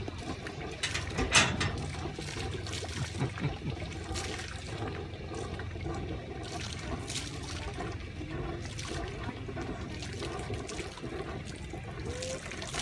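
Small waves lapping and splashing irregularly at the lake shore, over a low steady rumble, with the sharpest splash about a second and a half in.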